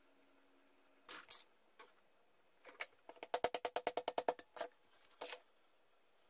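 Small metal bar clamp being handled on a workbench. A brief scrape, then a rapid run of about a dozen sharp metallic clicks in just over a second, and a few more knocks after it.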